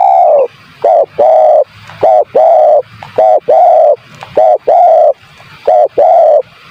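Spotted dove (tekukur) cooing loudly: a series of two-part coos, each a short note followed by a longer, slightly falling one, repeated about six times in quick succession.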